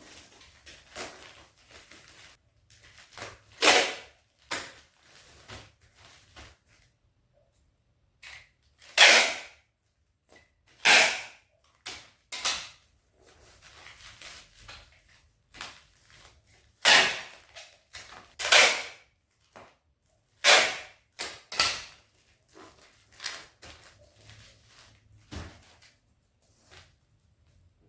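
A series of sharp, short knocks or snaps from hands-on household work, about eight loud ones spaced irregularly a second or more apart, with fainter handling noises between them.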